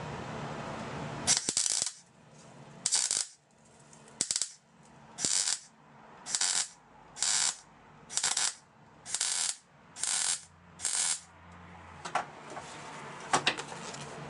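MIG welder stitch-welding a steel patch panel: about ten short bursts of arc, each under half a second and roughly one a second, then a few shorter tacks near the end.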